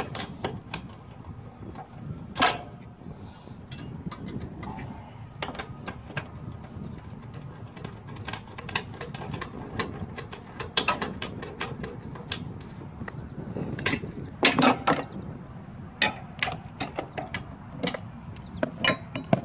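Handling noise as the camera is picked up and repositioned: fingers rub and tap over the microphone, making scattered clicks and knocks over a steady low background noise. There is a sharp click about two and a half seconds in and a burst of knocks about three-quarters of the way through.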